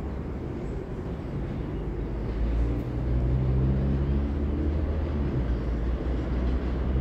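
Subway train approaching on elevated track, not yet in view: a low rumble with a steady, pitched motor hum that sets in and grows louder about two and a half seconds in.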